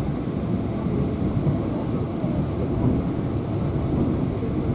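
Steady rumble of a passenger train carriage in motion, heard from inside the coach: wheels running on the track with the low noise of the car body.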